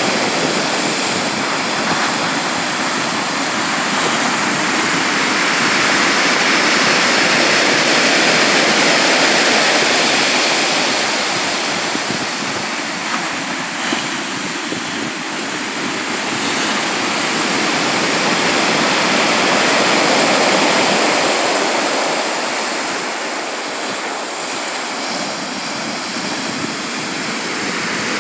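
Sea surf: a continuous rush of breaking waves that swells and ebbs slowly, twice louder over the stretch.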